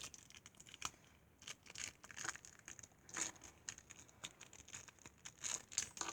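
Lego minifigure blind bag crinkling and rustling in irregular short crackles as it is handled and torn open by hand.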